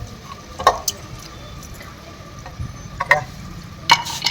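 Hard objects clinking and tapping as they are handled: a handful of separate sharp clicks, the loudest near the end, over a low steady rumble.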